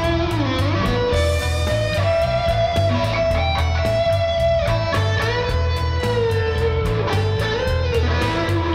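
Background music: an electric guitar plays a melodic lead of long held, bending notes over a bass line and a steady beat.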